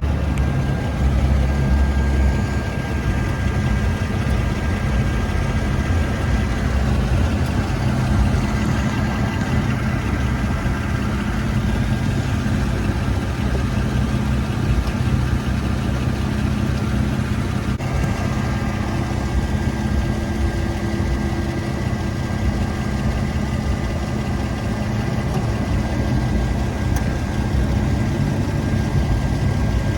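Nissan 350Z's V6 engine running steadily.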